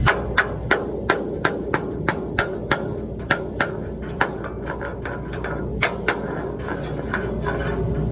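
Hammer blows, about three strikes a second in a steady rhythm, thinning out in the second half, over a steady low hum.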